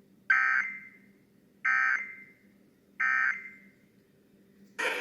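Three short bursts of SAME digital data from a NOAA weather radio broadcast, each about a third of a second long and spaced roughly one and a third seconds apart. This is the end-of-message code that closes the alert. Music starts just before the end.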